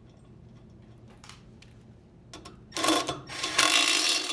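A few light clicks as the rotor bolt and washer are set in, then, about three seconds in, an impact driver hammering the bolt tight in several short runs, securing the washer's direct-drive rotor to the tub shaft.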